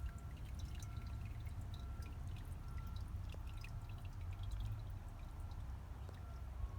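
Water trickling and dripping in a 2004 American Standard Cadet toilet, with many small drips over a steady low rumble.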